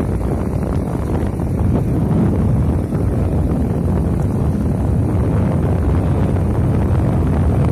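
Steady low rumble of wind buffeting a phone's microphone as it is carried along on a moving vehicle.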